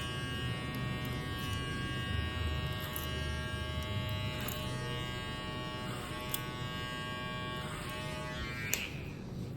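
Electric hair clipper running with a steady buzzing hum while cutting hair, its pitch dipping briefly two or three times as the blades take the hair. It stops near the end with a click.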